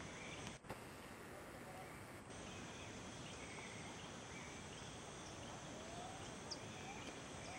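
Garden ambience: a faint, steady hiss of background noise with several short bird chirps scattered through it.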